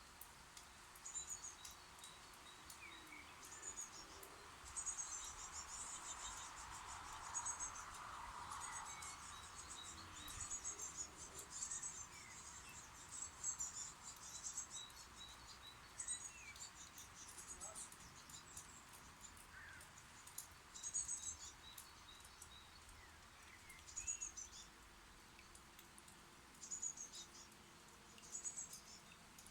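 Nestling birds in a birdhouse giving high, buzzy begging chirps in short bursts every few seconds, the begging of chicks being fed.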